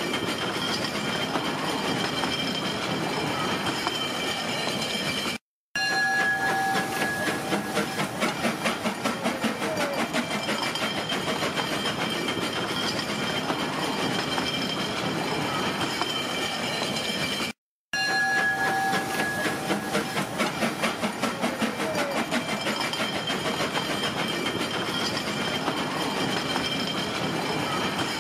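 Riding aboard a steam train: the running rumble and clatter of the cars' wheels on the track, pulsing in places. The sound cuts out briefly twice.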